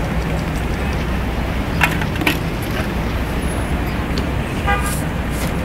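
Steady city street traffic rumble, with a short car horn toot near the end and a couple of sharp knocks about two seconds in.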